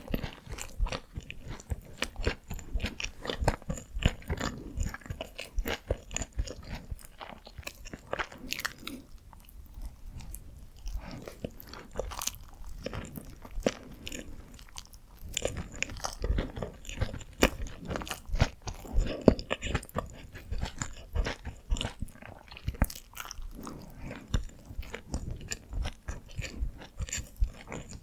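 Close-miked chewing and biting of Korean steamed buns (hoppang): irregular wet, crackly mouth sounds and bites that continue throughout.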